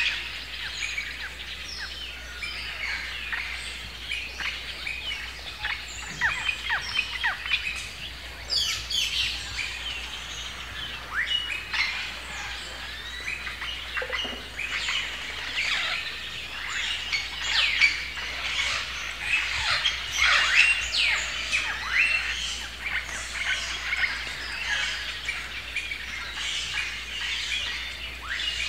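A chorus of many birds chirping and calling at once: dense, overlapping short chirps and quick falling whistles that carry on without a break.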